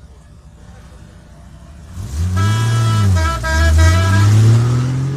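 An off-road vehicle's engine revs up hard close by, eases off and revs again as it pulls away. A car horn sounds over it, first in one long blast and then in several quick toots.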